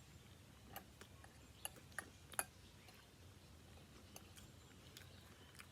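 Near silence, broken by a few faint, short clicks and ticks spread irregularly through it.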